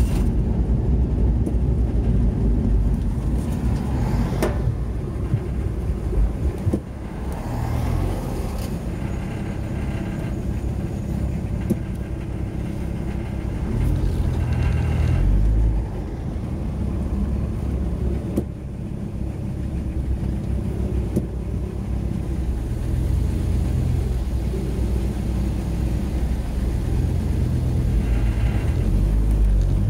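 Engine and road noise heard from inside a moving car's cabin, the engine note rising and falling several times as the car slows and pulls away in traffic.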